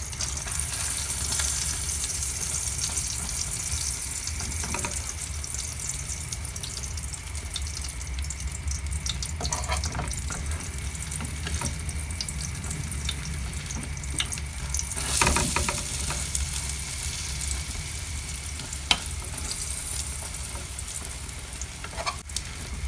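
Egg and bread frying in hot oil in a pan, a steady sizzling hiss. A brief louder burst of noise comes about two-thirds through, and a single sharp click follows shortly after.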